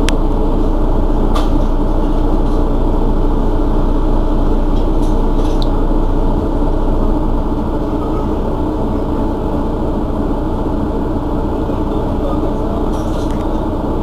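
Mercedes-Benz Citaro city bus's rear-mounted engine idling steadily, with a few short sharp clicks in the first few seconds.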